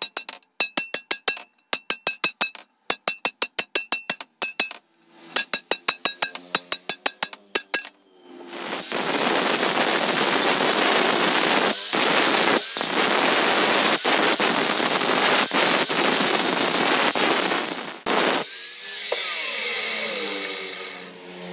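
Quick bursts of sharp, ringing metal-on-metal strikes for the first eight seconds. Then an angle grinder with an abrasive disc grinds down the weld bead on a steel crowbar for about ten seconds, and winds down with a falling whine.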